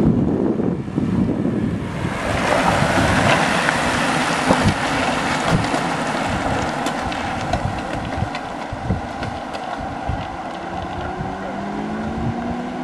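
Wind buffeting the microphone, then from about two seconds in a steady rushing of a bunch of racing bicycles going close by, tyres on tarmac with scattered clicks. Near the end a motor vehicle's engine rises in pitch.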